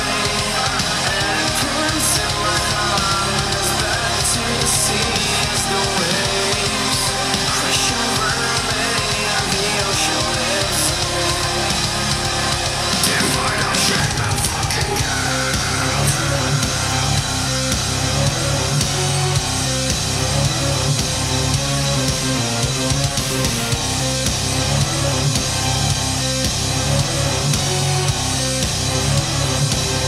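Rock music with guitar and drums played through a large portable Bluetooth speaker; the bass gets heavier about halfway through.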